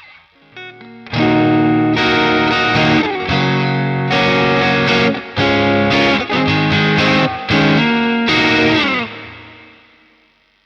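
Stratocaster-style electric guitar played through a Caline Pure Sky transparent overdrive pedal, giving a lightly driven, crunchy tone. A few soft notes lead into a rhythmic riff of strummed chords with short stops, and the last chord rings out and fades near the end.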